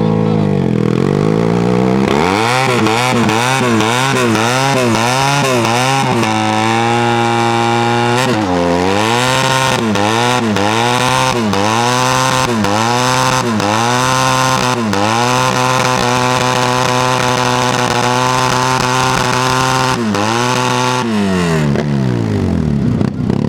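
Motorcycle engine being revved over and over in quick blips, rising and falling about once or twice a second. It is held at steady high revs for a few seconds twice, then drops back near the end.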